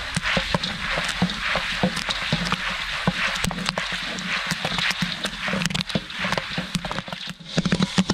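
Popcorn kernels popping in hot butter and coconut oil in a 60-quart steel kettle corn kettle: a dense, continuous run of sharp pops over a steady sizzle, dipping briefly near the end.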